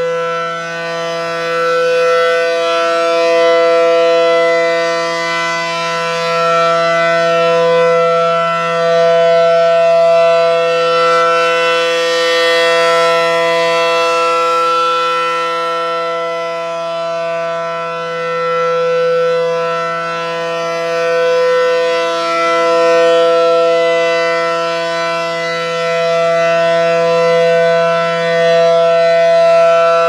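ACA Allertor 125 rotating outdoor warning siren sounding a steady Alert tone at a held pitch. It swells and fades every several seconds as its horns rotate toward and away from the listener.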